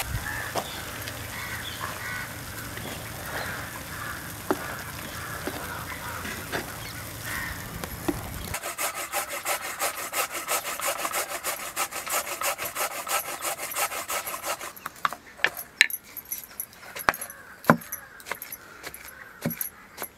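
Quick, steady rasping of a block of jaggery being grated on a hand grater. From about fifteen seconds in come separate knocks, one every second or two, of a wooden pestle pounding cooked chana dal in a stone mortar to grind it soft.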